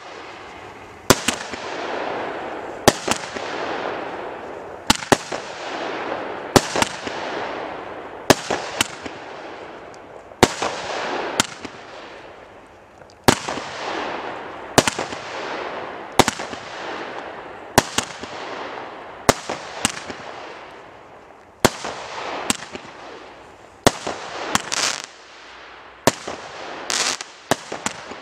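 Weco Startrooper 30-shot consumer firework battery firing. There is a sharp bang every second and a half or so, each followed by a fading crackle and hiss of burning stars, and the shots come faster near the end.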